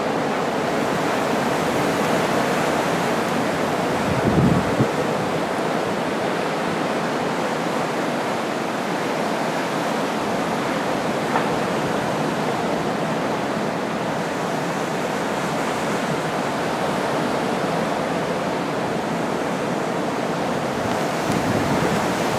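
Strong blizzard wind blowing steadily, a constant rushing noise buffeting the microphone, with a heavier low gust about four seconds in.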